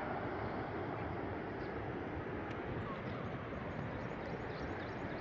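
Steady rushing noise of wind on the microphone, with a few faint high chirps.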